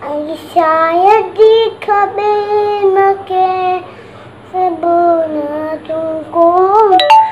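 A young boy singing a tune in two phrases of long held notes that slide up and down in pitch, with a short break about four seconds in.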